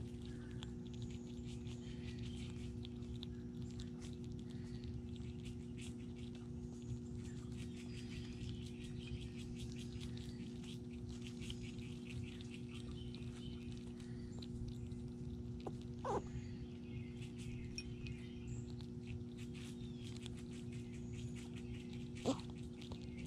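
Squirrels chewing and cracking nuts close to the microphone: many small quick clicks and crunches, over a steady low hum. Two brief louder sounds stand out, one about two-thirds of the way through and one near the end.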